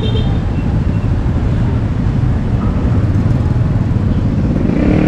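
Street traffic noise: a steady low rumble of passing motor vehicles. Near the end a vehicle engine's steady note comes up close.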